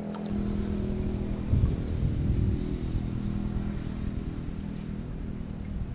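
A motor engine running steadily nearby, a low hum that holds one pitch, swelling into louder low rumbling about one and a half to two and a half seconds in. Faint scraping of a plastic fish scaler across a fish's skin sits underneath.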